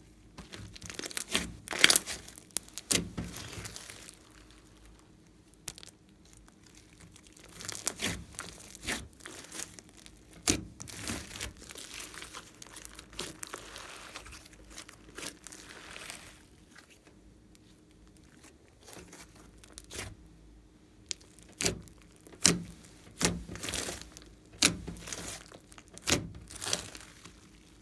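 Glossy slime being stretched, pulled apart and squeezed by hand: irregular sticky crackles, pops and tearing sounds that come in clusters, with short quiet pauses between handlings.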